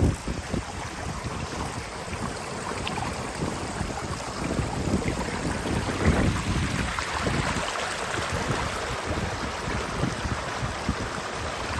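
Wind buffeting the microphone in uneven gusts, over the steady rush of a moorland stream.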